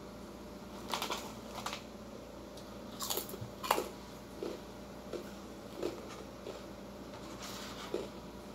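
Close-up eating sounds from someone eating grilled chicken with her fingers: a few sharp clicks and crackles of handling the food and its plastic takeaway packaging, then softer chewing smacks every half second or so. A steady low hum runs underneath.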